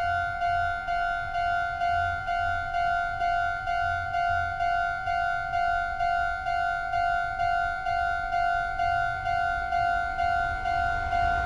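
Japanese railroad crossing warning bell (the electronic "kan-kan" alarm) ringing in a rapid, even rhythm of identical strokes, the signal that a train is approaching.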